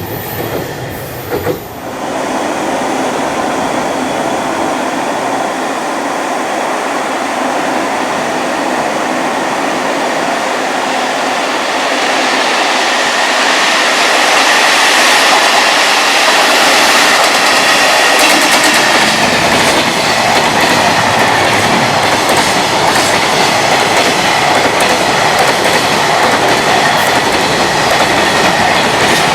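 Freight train running past, its rumble and rail noise growing louder over the first half and then holding steady, with the wheels clattering over the rail joints.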